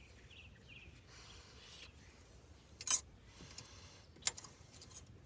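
Two short, sharp clicks, about a second and a half apart, from hand tools and parts being handled in an engine bay while a fuel pressure regulator is fitted, over faint outdoor background.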